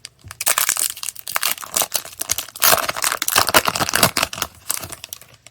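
Foil booster-pack wrapper crinkling and tearing as it is opened by hand: a dense crackle lasting about four and a half seconds, stopping shortly before the end.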